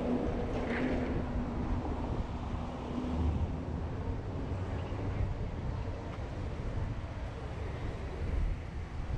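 Car driving on city streets: a steady low rumble of road and engine noise with wind on the microphone, and a low steady hum over it for about the first three seconds.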